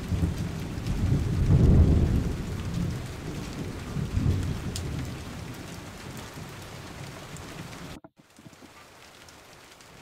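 Rain falling steadily on the forest foliage, with a deep rumble in the first few seconds that fades out. The sound drops abruptly to a much quieter level about eight seconds in.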